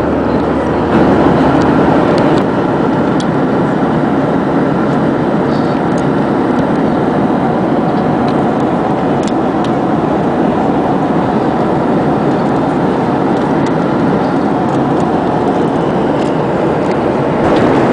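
Steady in-flight cabin noise of a Boeing 737-700: the even rush of its engines and the airflow over the fuselage, heard from a window seat.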